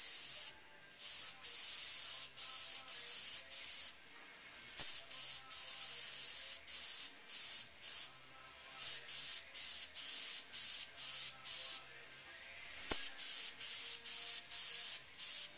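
Airbrush spraying paint in many short bursts of hiss, a fraction of a second each with a few longer passes, as the trigger is pressed and released rivet by rivet.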